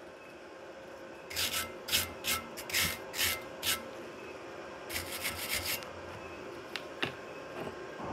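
Wire brush scrubbing slag off a fresh weld on steel rebar: about seven quick strokes in the first few seconds, then a faster flurry of strokes about five seconds in.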